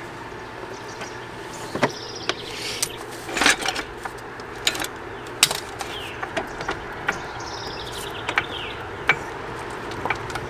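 Hand tools clinking and knocking against the steel front suspension parts, with irregular sharp metallic clicks, some briefly ringing and a cluster about a third of the way in, over a steady low hum.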